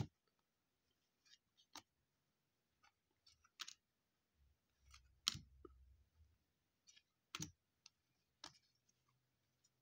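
Baseball trading cards being handled and flipped through one at a time: faint, sharp clicks and snaps of card stock, one every second or two.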